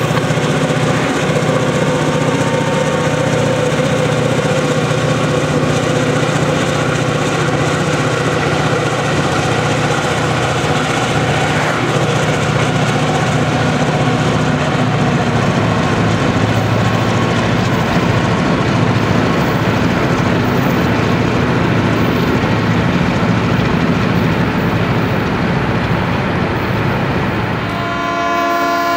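High-hood EMD GP38-2 diesel locomotive running at speed with its freight train, a steady mix of engine drone and wheel-on-rail noise. Near the end its ailing five-chime Nathan P5 horn starts to blow, a held chord of several notes.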